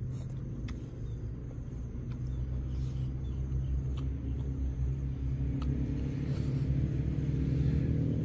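A low engine rumble that slowly gets louder, with a few faint clicks over it.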